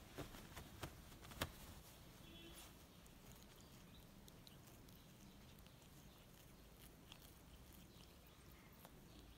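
Near silence: faint room tone with a few soft clicks in the first second and a half.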